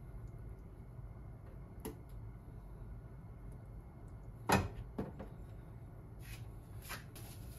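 Quiet handling of a plastic tub of pickled red ginger over a stainless steel counter: soft clicks and taps, with a sharper knock about four and a half seconds in and a smaller one half a second later.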